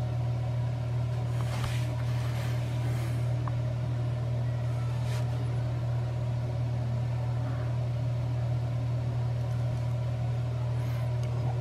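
Steady low machine hum with a few faint higher overtones and a few faint soft clicks.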